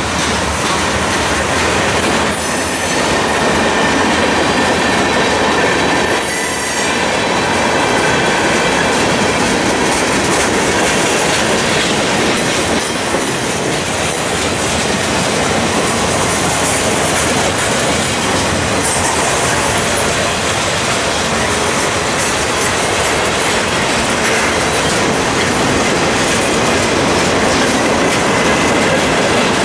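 Freight train of covered hoppers and boxcars rolling past: steel wheels clacking over rail joints on a steady rumble, with a thin wheel squeal now and then.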